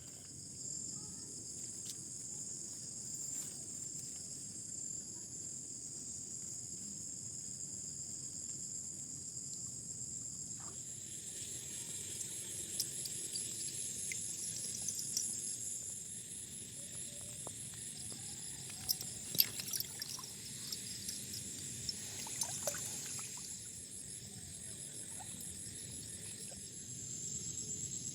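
Night insect chorus of crickets, a steady high pulsing trill, over water trickling and splashing as the net is worked in the flooded field. A few sharper splashes come about two-thirds of the way through.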